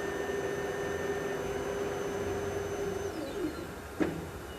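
Ricoh Aficio 2232C colour copier's motors running with a steady hum while it runs its forced developer-unit self-check. About three seconds in they wind down with a short falling whine as the check finishes, followed by a single click.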